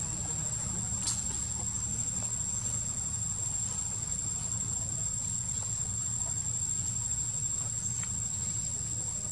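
Insects shrilling in a steady, unbroken high-pitched drone over a low steady rumble, with one faint tick about a second in.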